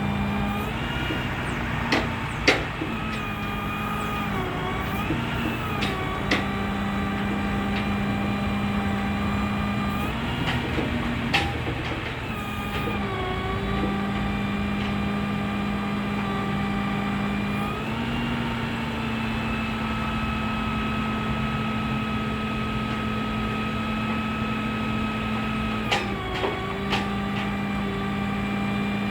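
Dodge 5500 truck engine running at PTO speed, driving the Palfinger crane's hydraulics, a steady machine drone that sags and shifts in pitch several times as crane functions are worked. A few sharp clicks and clanks sound along the way.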